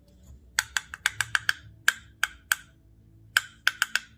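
A spoon knocking sharply against the edge of a dish, about fifteen quick taps in uneven clusters, as a tablespoon of mayonnaise is knocked off it.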